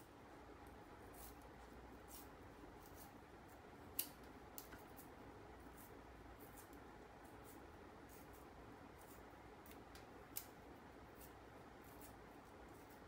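Thin bamboo strip being split lengthwise with a knife, parting the green outer skin from the white inner layer: faint crackling with scattered light ticks, and a sharper click about four seconds in and again about ten seconds in.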